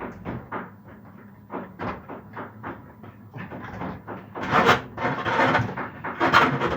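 Hands working on dishwasher parts: a quick run of light clicks and knocks, then two louder stretches of scraping and rustling about four and a half seconds in and near the end.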